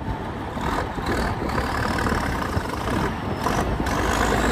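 Heavy vehicle engine running steadily, with a faint whine slowly rising in pitch from about a second in.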